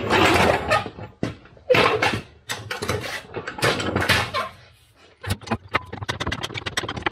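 A jack being worked to lift a tractor wheel off the ground: scraping and handling noises, then from about five seconds in a quick, even run of clicks, about six a second.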